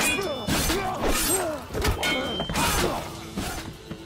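Sword-fight clashes: several blade strikes in quick succession, some leaving a short metallic ring, amid the fighters' grunts of effort. The strikes ease off in the last second.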